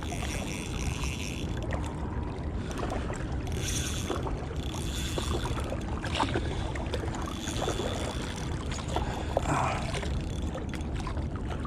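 Shimano Stradic Ci4+ 1000 spinning reel working against a hooked fish, giving four or so short high-pitched spells over a steady background of wind and water noise.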